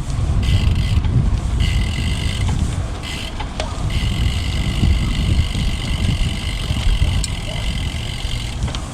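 Riding a road bike: wind buffeting the microphone and tyres rumbling, with a high buzzing that starts and stops several times and then runs steadily for most of the second half.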